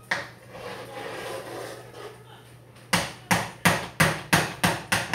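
A kitchen utensil clacks and scrapes in a cooking pot, then knocks sharply against it about eight times, roughly three strikes a second.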